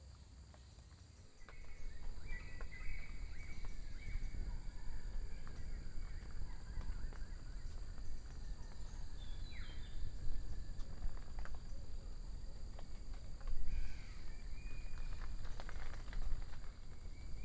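Forest ambience: a steady high insect drone, a few short bird calls (one falling) and scattered soft clicks and rustles over a low rumble. It comes up about a second in after a nearly silent start.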